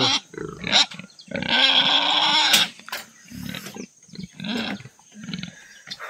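Domestic pigs grunting in a pen, with one loud, harsh squeal about a second and a half in that lasts about a second.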